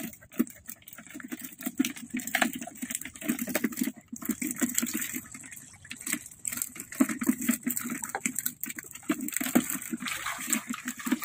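Shallow water splashing and sloshing irregularly as a long-handled hand net is swept and scooped through it to catch trapped fish.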